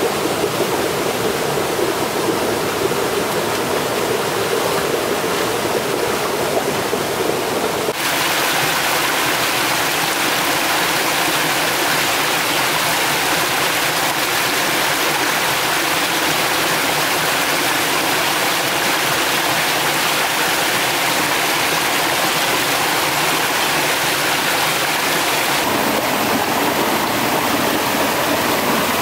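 Loud, steady rush of stream water. It shifts abruptly in tone about eight seconds in and again near the end.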